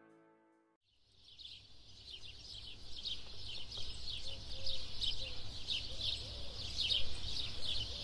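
The tail of music fades out at the start, then outdoor ambience fades in about a second in: a dense chorus of rapid, high birds chirping over a low steady rumble.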